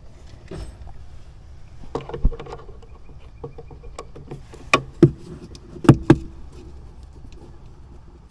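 Scattered sharp clicks and knocks from tools and parts being handled while working on a Jeep's trim and fasteners. The loudest are two close knocks about six seconds in.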